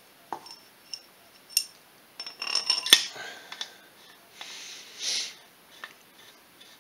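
Light metallic clinks and taps of steel head bolts and washers being handled and set into the cylinder head of a Polaris ATV engine, a quick cluster of them about two to three seconds in. A couple of short scuffing sounds follow.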